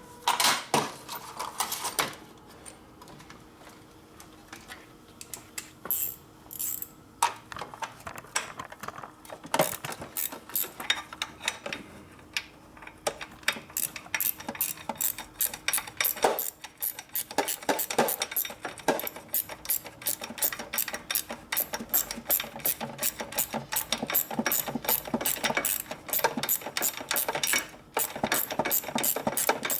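Quarter-inch drive socket ratchet clicking in steady repeated strokes, about three clicks a second, as a bolt on a bracket is turned out. A few metal tool clinks come near the start.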